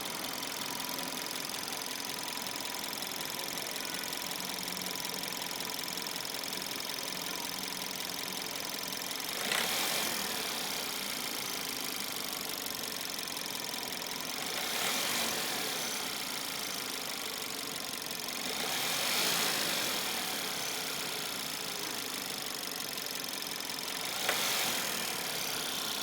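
Seat Leon 1.2 TSI turbocharged petrol engine running steadily. Four brief, louder hissing swells come at roughly five-second intervals, each rising and dying away within a second or two. They are likely the strange sound the owner is recording.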